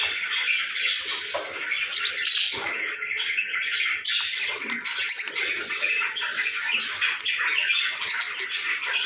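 Pet lovebirds calling all together: a continuous mass of many short, overlapping high-pitched calls with no pause.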